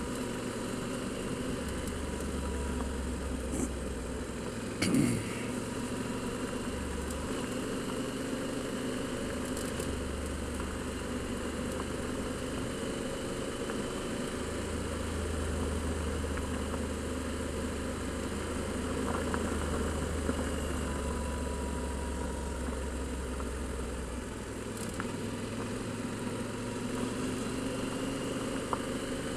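Adventure motorcycle's engine running steadily while riding along a gravel track, with tyre and wind noise. A brief knock about five seconds in.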